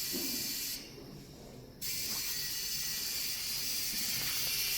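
Compressed air hissing steadily as a truck's air brake and gearbox system is pumped up from a shop air line, with the pressure rising. The hiss cuts out for about a second near the start, then resumes and grows slightly louder.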